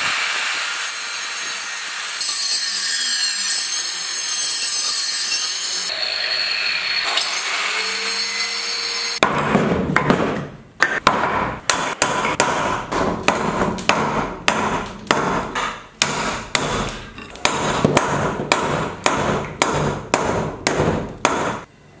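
A steady rushing hiss. About nine seconds in it gives way to a long run of hard, sharp blows, about two a second, that stops shortly before the end.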